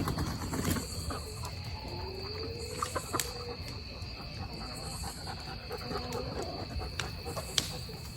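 Two drawn-out, low animal calls, one about two seconds in and another about six seconds in, over a steady high insect trill, with a few sharp clicks.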